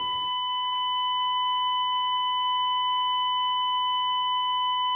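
A long electronic bleep held at one steady pitch without a break, the kind of tone used to censor TV audio.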